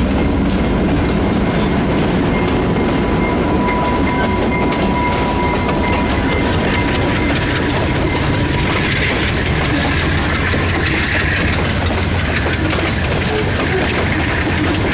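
Freight cars (tank cars and covered hoppers) rolling past at close range, their wheels clicking over the rail joints in a steady loud clatter. A thin steady whine rides over it for the first several seconds, and the low sound of the departing locomotive's diesel fades out early on.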